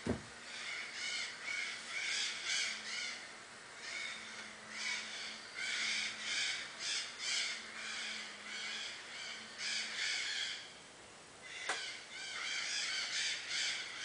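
Harsh bird calls repeating several times a second, with a sharp knock at the start and another about twelve seconds in.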